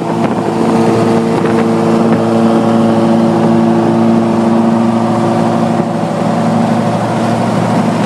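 Car engine droning steadily at highway cruising speed, heard from inside a moving car, with road and wind noise.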